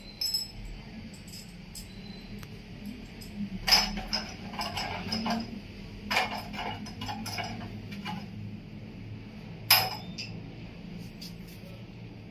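Scattered metallic clinks and knocks of stainless window-grill fittings and hand tools being handled, the sharpest about four seconds in and again near the end.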